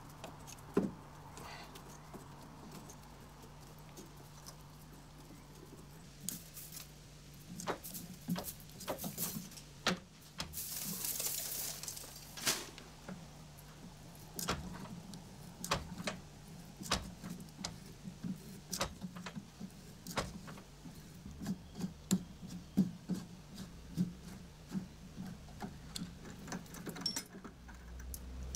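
Scattered metallic clicks and knocks as a tap and tap wrench are handled and turned by hand, tapping the internal thread of a steel nut held in a lathe chuck, over a steady low hum. A short hiss comes about eleven seconds in.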